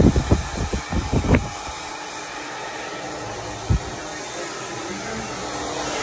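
Electric hair clippers running with a steady buzz during a haircut. A quick run of low thumps comes in the first second and a half, and one more a little before four seconds.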